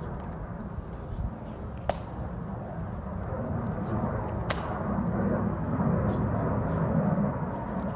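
Two sharp clicks from the Tomb guards' drill, about two and a half seconds apart, over a steady low rumble of open-air background noise.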